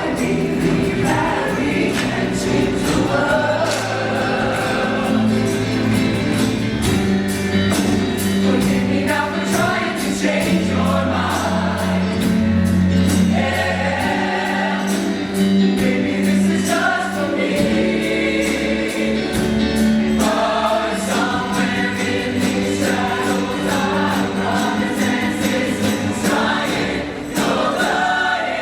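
Show choir singing in full harmony over a live band, with sustained bass notes and a steady beat.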